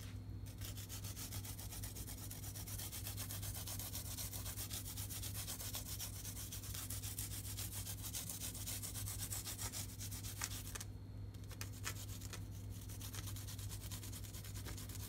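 Fast, steady scraping strokes, a rough rubbing repeated many times a second, which stop about eleven seconds in and give way to a few scattered scrapes.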